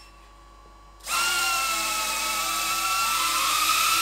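Tiny Hawk II micro FPV drone's motors and propellers spinning up about a second in and then running at throttle, a high whine with a slightly wavering pitch.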